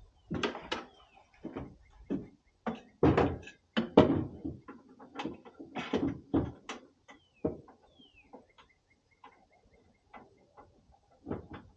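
Irregular knocks and clatters of camp gear being handled: a plastic bin set down on a pickup tailgate and a small gas bottle taken out and hooked up to a slide-out camp cooker. The loudest knocks come about three to four seconds in.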